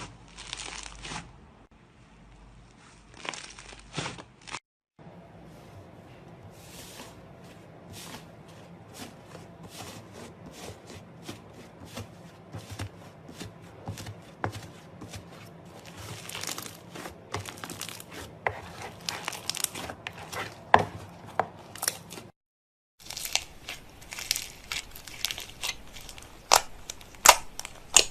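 Slime being squeezed and pressed by hand, giving a dense run of small crackles, pops and squelchy clicks. The sound breaks off twice for a moment.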